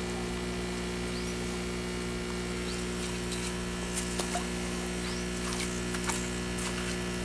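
Steady electric buzz of an air pump aerating the fish tanks, with a few light splashes and knocks and some short rising chirps.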